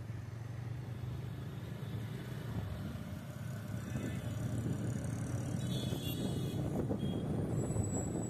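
Motor vehicle engine hum and road traffic noise from moving through city traffic. It is a steady low drone that grows louder from about halfway through.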